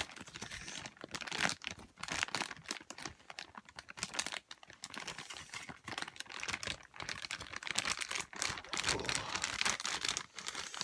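Clear plastic bag crinkling and rustling in the hands as it is opened and handled, a continuous run of dense crackles.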